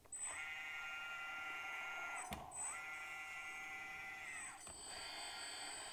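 Brushless-motor hydraulic pump of a 1:16 RC excavator (Amewi G101H) whining as the arm is moved quickly: the whine rises, holds about two seconds and drops, then again after a click, and a lower, weaker whine follows near the end. The pump runs only while an arm function is being moved.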